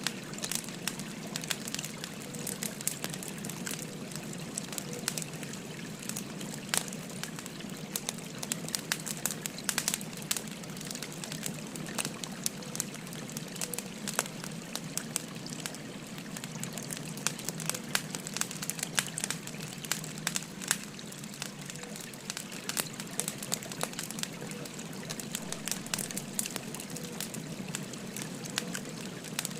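Burning firewood crackling and popping in many scattered sharp snaps, over the steady babble of a flowing stream.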